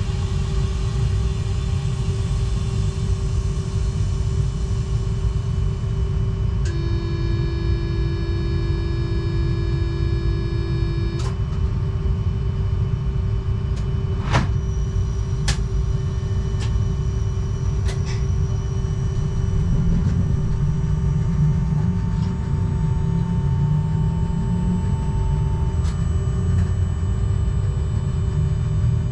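Z 20500 double-deck electric train running, heard from the driver's cab: a steady low rumble of wheels and running gear with a constant tone over it. A held tone with overtones sounds for about four seconds near the first third, a few sharp clicks follow, and a low hum climbs in pitch in steps near the end.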